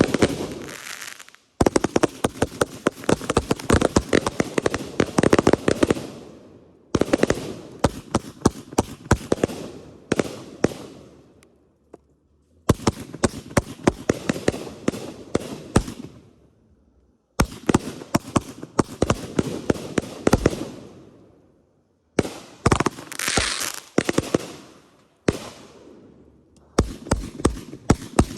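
Consumer fireworks going off in rapid volleys of bangs and crackling. It comes in several separate runs, each starting suddenly and fading out before the next begins.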